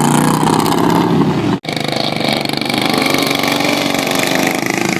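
Racing lawn mower engines running loud at high revs; the pitch slides slightly down, breaks off abruptly about one and a half seconds in, then a steadier high-pitched engine runs on.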